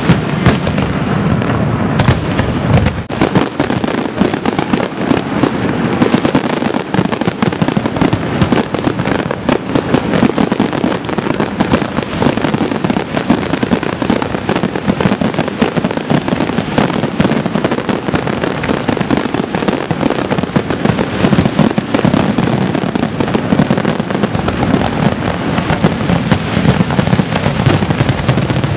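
Aerial fireworks display: a dense, continuous barrage of shell bursts, launch thuds and crackling, one bang following another with hardly a break.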